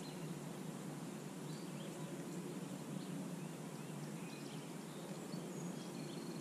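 Quiet outdoor lake ambience: a steady low hiss with faint, scattered bird chirps.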